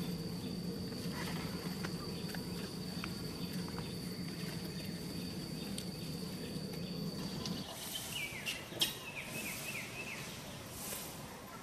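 Steady high-pitched insect drone over a low hum, both stopping abruptly about two-thirds of the way through. After that comes a run of short falling chirps and a single sharp click.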